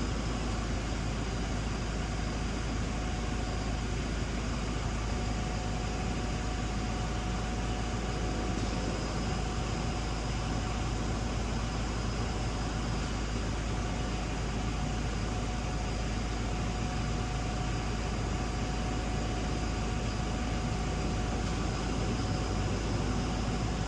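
Steady hum and hiss of an idling vehicle, with a faint steady high tone above it and no siren sounding.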